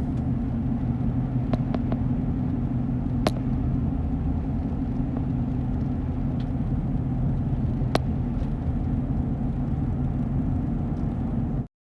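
Vehicle driving at a steady speed: a steady low rumble of engine and road noise with a few sharp clicks, cutting off suddenly near the end.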